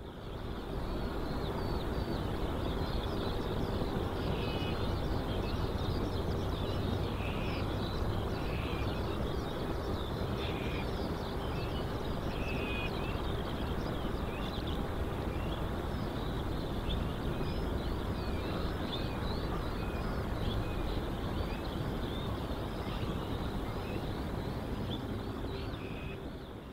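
Outdoor ambience of many small birds chirping over a steady low rumble. It fades in at the start and fades out near the end.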